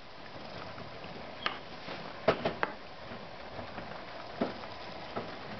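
Rabbit doe shifting in her hay nest: a handful of short dry crackles and ticks of hay rustling, several close together a little past two seconds in, over a steady low hiss.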